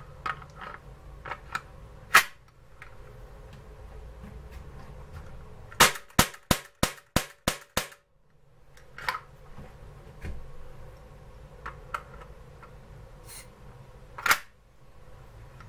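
Taurus PT24/7 airsoft pistol's action snapping: a few light clicks, a loud snap about two seconds in, then a quick run of about eight sharp snaps at roughly four a second, followed by scattered clicks and one more loud snap near the end.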